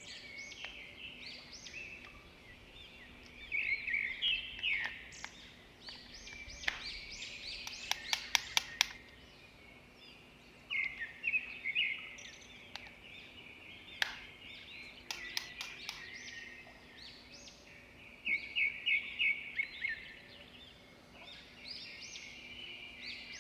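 Small birds chirping in repeated short bursts, with a few sharp clicks, some in quick runs.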